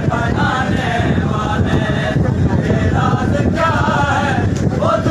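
Men chanting a noha, a Shia Muharram lament, led by a reciter on a microphone, in sung phrases with short breaks, over the dense din of a packed crowd.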